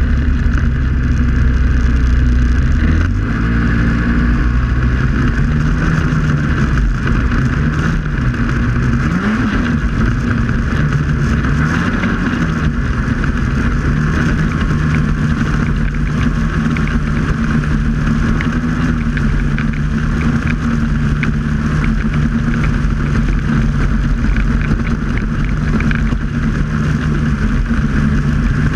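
Snowmobile engine running at speed. Its pitch climbs about three seconds in, rises and falls a few times over the next ten seconds, then holds steady.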